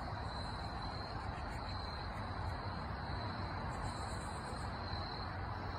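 Crickets chirping in a steady high trill over a low outdoor background rumble. A second, higher insect buzz joins briefly about four seconds in.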